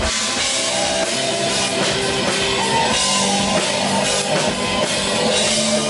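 Rock music from a band, with a full drum kit and guitar.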